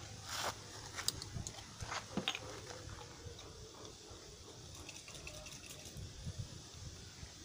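Faint splashes and taps as a small pH test vial is rinsed and its water shaken out: a few short ones in the first two seconds or so, then only a faint steady background.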